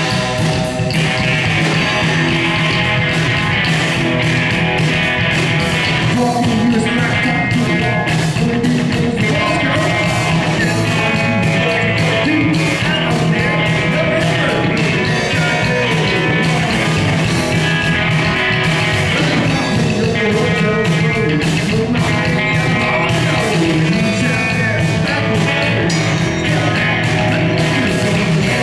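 A live rock-and-roll trio playing: electric guitar, upright bass and drum kit, with the guitarist singing lead.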